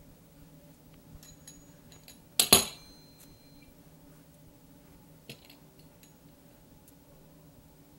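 Metal pizza cutter (cutting wheel) set down on the work surface: a sharp double clack with a brief metallic ring about two and a half seconds in, then a softer click about five seconds in. A low steady hum runs underneath.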